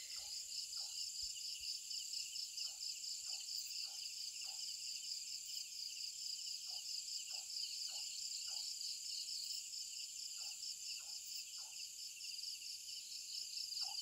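Steady chorus of night insects with a fine, fast-pulsing high trill. Faint short calls from a distant animal repeat irregularly underneath, often in pairs.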